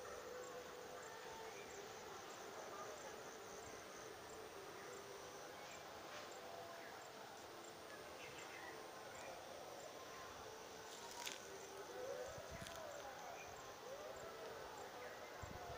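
Faint insects chirring steadily, a high thin tone with an even pulse. Two soft rising-and-falling calls come in about twelve seconds in, and there is a single sharp click a little before them.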